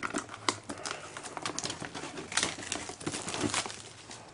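Plastic wrapping being peeled and crinkled off a hard drive's retail box: a run of irregular crackles and small clicks.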